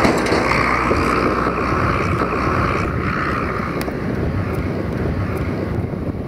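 UTB U650 tractor's diesel engine running as it tows two tipping trailers away, slowly fading as it goes, with wind on the microphone.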